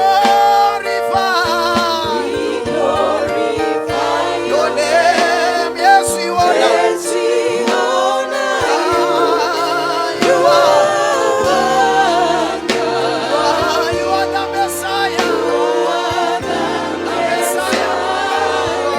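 Gospel worship music: several voices singing with wavering vibrato over held keyboard chords and bass notes that change every second or two.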